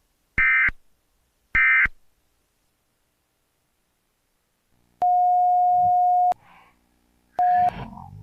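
Emergency Alert System end-of-message data tones: two short, screechy digital bursts about a second apart, the last of the three that close an alert. A few seconds later a steady single-pitched tone sounds for over a second, then a short one, followed by a brief garbled noise.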